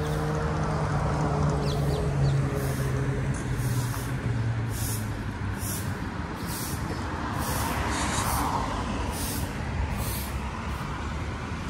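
Road traffic going by: a vehicle's engine hum fading away over the first few seconds, over a steady rumble of traffic, and another vehicle passing about eight seconds in.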